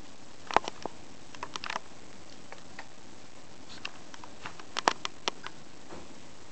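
Pet rats moving about on a ceramic-tiled tabletop, making scattered sharp clicks and taps in two clusters, about a second in and again around five seconds in.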